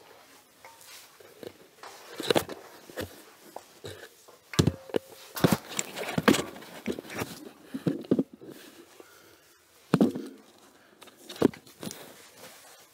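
Irregular footsteps and knocks in a small, hard-walled space: a scattering of separate thumps and clicks, the loudest about two and a half seconds in, around six seconds in and about ten seconds in.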